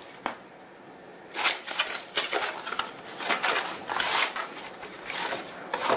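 A cardboard product box being opened by hand: the flaps pulled open and the card rustling and scraping in irregular bursts from about a second and a half in.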